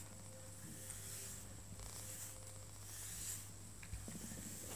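Grooming brush drawn through a tabby cat's fur: faint, soft swishing strokes repeated every second or so.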